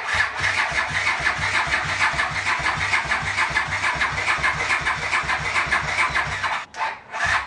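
Honda CX500 V-twin being cranked on its electric starter without catching, an even rhythmic churn of compression strokes with a whine over it; it stops briefly near the end and then cranks again. The battery is almost flat.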